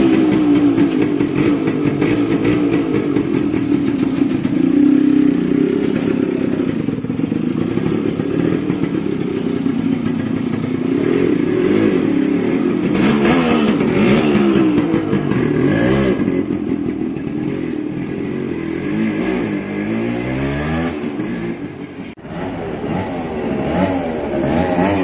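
Loud, modified Yamaha RX135 single-cylinder two-stroke engine running and being revved, its pitch swooping up and down again and again as the motorcycle gets under way.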